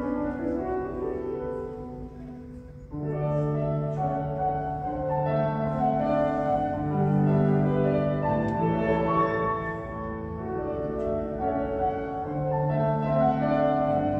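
Grand piano playing a solo interlude of chords and melody while the duduk rests. A held duduk note fades out in the first few seconds, before the piano enters fully.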